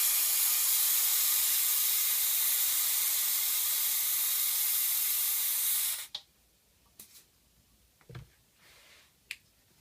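Compressed air hissing steadily from a home-built air compressor, cutting off abruptly about six seconds in. A few faint clicks follow.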